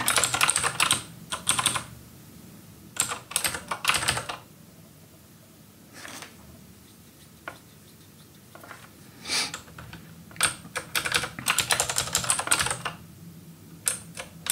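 Typing on a computer keyboard: quick runs of keystrokes with pauses of a second or two between them.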